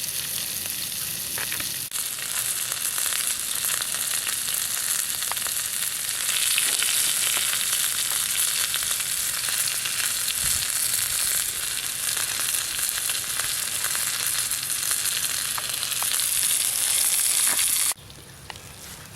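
Chicken tenders frying in hot olive oil in a pan: a steady sizzling hiss with scattered pops and crackles, cutting off abruptly near the end.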